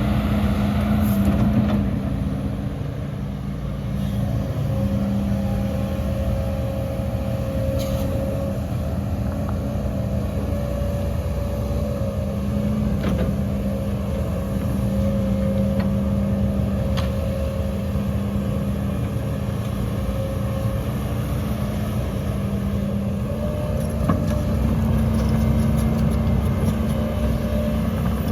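Heavy diesel engine of earthmoving machinery running steadily, with a few faint knocks.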